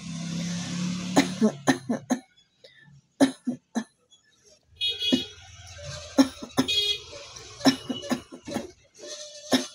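A person coughing again and again in short, separate coughs, with a steady background noise rising and falling between them.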